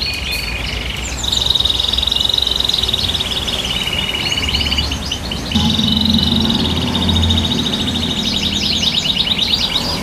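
Caged domestic canaries singing: long, fast trilled phrases with rapidly repeated notes, one running into the next with brief breaks.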